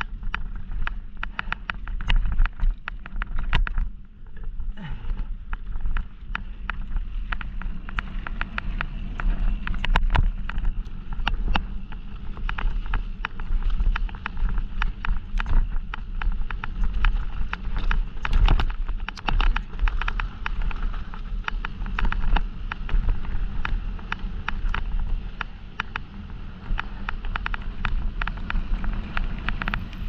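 Mountain bike rolling fast down a dirt and gravel trail: tyres on loose ground, with a steady stream of rattles and clicks from the chain and frame over bumps. Low wind rumble on the camera microphone.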